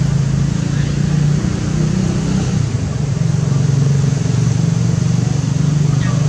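A steady low engine drone that holds level throughout, with no break or change.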